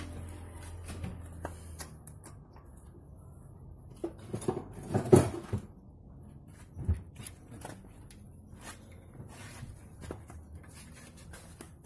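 Scattered light metallic clinks and knocks from engine parts and tools being handled on a dismantled engine. A louder cluster comes about four to five seconds in and a single knock near seven seconds.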